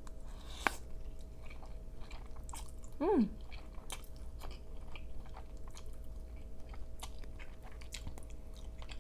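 Close-miked chewing of a mouthful of crawfish pasta: soft wet mouth clicks and smacks throughout, with one sharper click just under a second in and a short falling "mm" about three seconds in.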